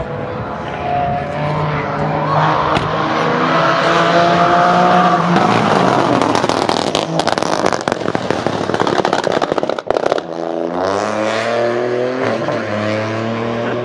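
A 2020 Peugeot 208 Rally 4's turbocharged 1.2-litre three-cylinder engine accelerates hard with rising pitch. It then breaks into a long run of rapid, sharp crackles and bangs from its anti-lag system, and after a brief drop pulls away again with the pitch climbing.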